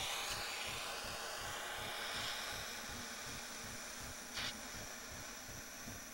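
Steady hiss as a lighter flame is held at the side ignition hole of a homemade rocket stove heater to light the paper inside, slowly fading, with a brief sharper noise about four and a half seconds in.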